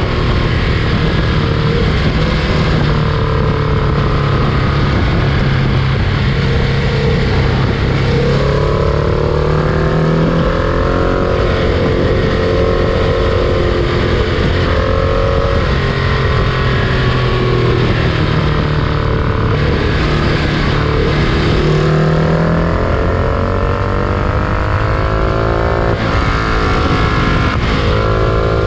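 Freight train under way: a steady, loud mechanical rumble with a pitched drone that slowly wavers up and down.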